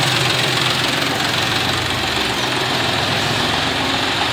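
John Deere 5105 tractor's three-cylinder diesel engine running steadily at low revs while the tractor is driven slowly, a deep even diesel sound.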